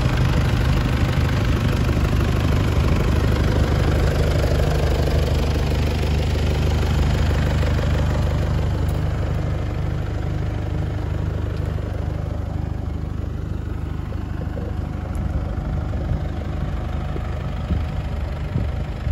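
4-ton Heden forklift's engine idling steadily, growing somewhat quieter about halfway through.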